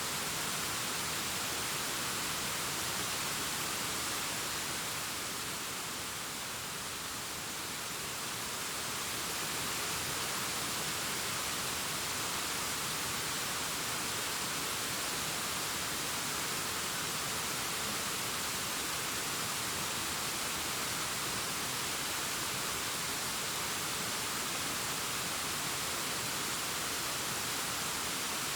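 Distant waterfall cascading down a rockface: a steady, hissing rush of falling water that softens slightly for a few seconds about a quarter of the way in.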